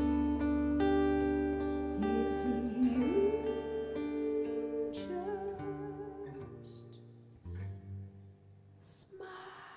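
Acoustic guitar playing slow sustained chords, with a wordless vocal line that glides up and then holds a wavering note. The music fades, and a last low chord rings out about three-quarters of the way through and dies away, ending the song.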